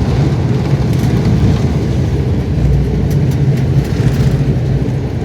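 Steady, loud rumble of a passenger airliner heard from inside the cabin during landing: engine and airframe noise.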